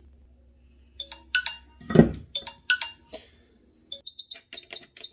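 Quick 861DW hot air rework station: a low steady hum that stops with a thump about two seconds in, surrounded by a run of short electronic beeps of several pitches, then a quick series of short high beeps near the end as its front-panel buttons are pressed.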